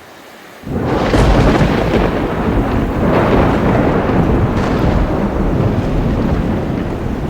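A sudden loud thunderclap about a second in, rolling on as a long, loud rumble of thunder in a thunderstorm.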